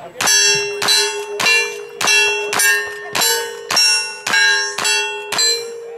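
Ten rapid gunshots about half a second apart. Each is followed by the clear ring of a steel target being hit.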